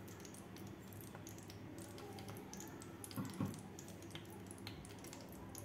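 Ghee heating in a metal kadhai on a gas burner, faintly sizzling with scattered small crackles and pops as it comes up to temperature. A brief soft bump comes a little past the middle.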